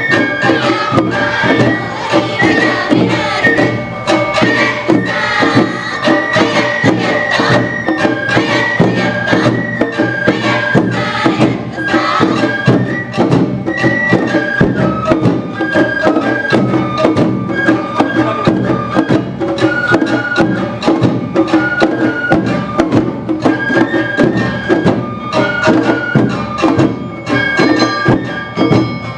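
Awa Odori festival band music: a high, held bamboo-flute melody moving in steps over steady drum and bell beats.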